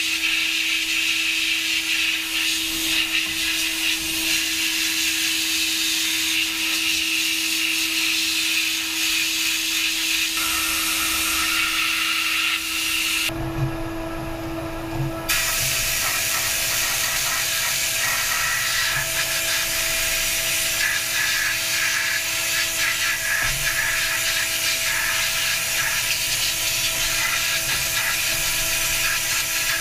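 A power tool running steadily with a constant hum and hiss; about 13 seconds in the sound switches abruptly to another steady machine sound with a higher hum.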